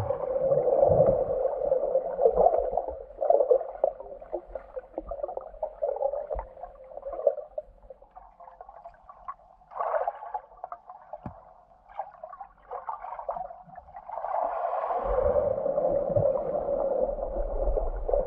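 Muffled underwater churning of water and bubbles as swimmers dive in and kick past, heard from below the surface of a swimming pool. Loud at the start, quieter with scattered bubbly bursts around the middle, and a steadier churn building again near the end.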